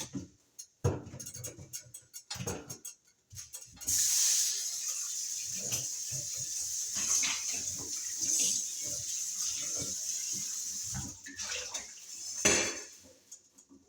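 Kitchen tap running into the sink as dishes are rinsed out. Cookware clinks and knocks at first, then the water runs steadily for several seconds and stops, followed by more clatter near the end.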